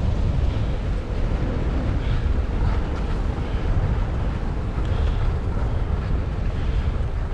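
Wind buffeting an action camera's microphone while skiing downhill, a steady low buffeting, with the hiss of skis sliding over snow.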